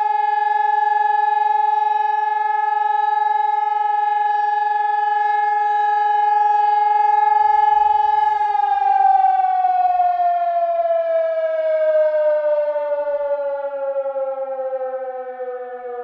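Sonnenburg SES 2400 electronic siren sounding its test alarm: a loud steady tone that, about eight seconds in, starts sliding slowly down in pitch as the siren winds down.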